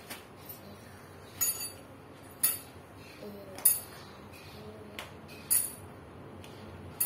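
Sharp metallic clinks, about five of them a second or so apart with smaller ticks between, as the metal fittings of a standing fan are handled and fitted together during assembly.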